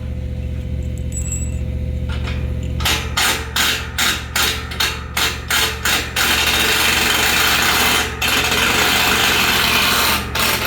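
A power tool worked in a quick series of short bursts, about three a second, then held on continuously for several seconds with one brief pause. A steady low machinery hum runs underneath.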